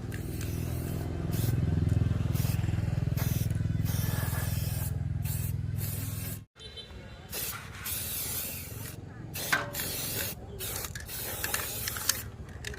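A steady low mechanical hum that cuts off abruptly about halfway through, followed by short, irregular bursts of hissing and a few clicks.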